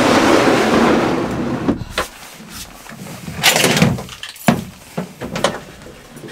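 Gear being handled in a pickup truck bed: a long scraping slide at the start, then a series of separate knocks and thumps against the truck bed and its edge.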